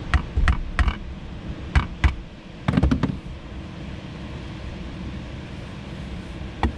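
Hammer striking a metal spike to drive it through a frozen chicken thigh: a run of sharp blows in the first two seconds and a quick cluster of knocks about three seconds in, then one more knock near the end.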